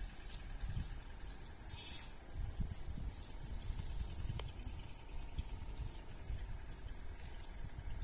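Insects trilling: a steady, high, shrill buzz that holds without a break, with a low uneven rumble underneath and a single sharp click about four and a half seconds in.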